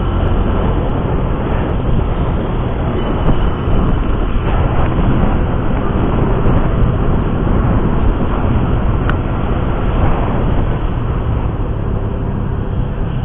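Steady low rumble of riding noise on a handlebar-mounted camera: wind buffeting the microphone over a motor scooter's engine and road noise. There is a single sharp click about nine seconds in.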